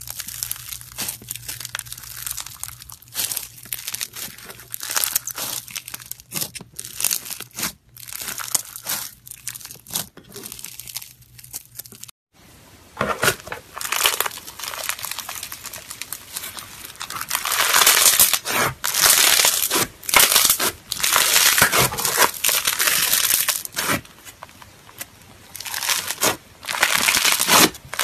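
Crunchy slime squeezed and kneaded by hand: a dense run of crackling, popping crunches. After a brief break about 12 s in, a second, crumbly textured slime is pressed and squished, with louder and denser crunching.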